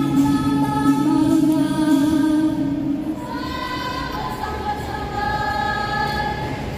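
Dance music with a choir of voices singing long held notes in several parts. A low part drops out about three seconds in, leaving the higher voices holding on.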